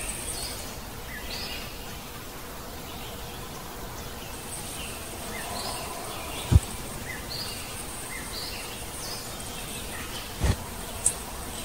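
Rural outdoor ambience: small birds chirping in short, scattered calls over a steady high insect hiss. A sharp thump sounds about six and a half seconds in and another near the end.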